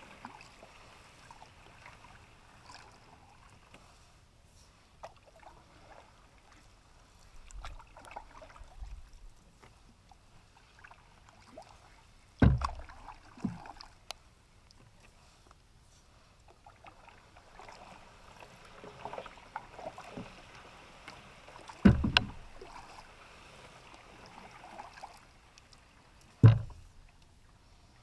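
Canoe being paddled, with faint water swishes from the paddle strokes. Three loud knocks on the metal canoe hull stand out, about halfway, about four-fifths of the way through and near the end, with a few softer knocks between them.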